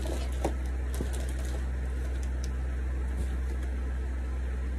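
Steady low hum throughout, with faint rustling and a few light clicks near the start from plastic-wrapped computer accessories being handled in a cardboard box.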